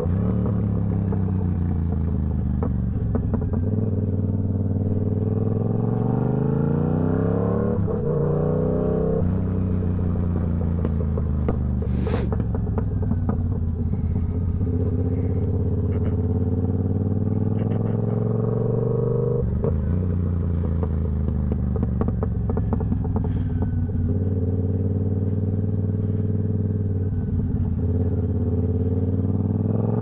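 Yamaha R7's 689 cc parallel-twin engine through a TOCE full-system exhaust, riding under way. The pitch climbs as it accelerates and drops sharply at each gear change, several times, with stretches of steady cruising in between.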